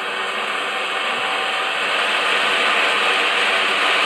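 A steady rushing noise, like wind on a phone microphone or a fan, growing slightly louder, with no speech.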